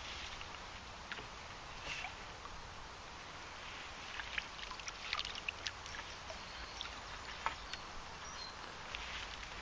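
Light splashes and ticks at the water surface from a small hooked fish being played on a fishing pole, scattered and clustered a few seconds in, over a faint steady background.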